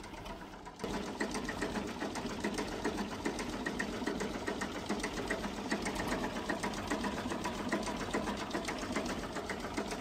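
Vintage tractor engine running with a fast, even knock that starts abruptly about a second in.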